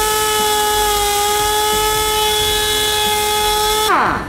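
Vessel GT-P14W pneumatic impact wrench free-running unloaded on compressed air: a steady whine with a rush of hissing air, winding down near the end as the trigger is released. This is its test run after the broken anvil was replaced, and it runs fine.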